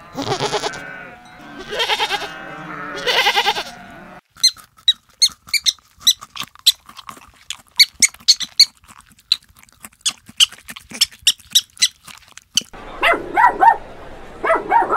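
A goat bleats twice in long, wavering calls. Then porcupines give a rapid run of short, high squeaks, several a second. Near the end, dogs yelp and whine.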